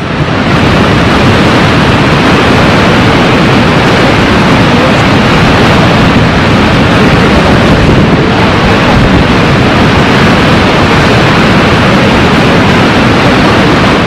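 Horseshoe Falls at Niagara: a loud, steady rush of falling water with a deep rumble underneath.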